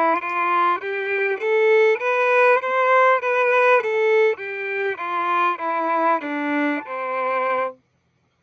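Violin played through a Cherub acoustic pickup, bowing a simple scale one note at a time, about two notes a second. The scale climbs to its top note two to three seconds in, steps back down, and stops just before the end.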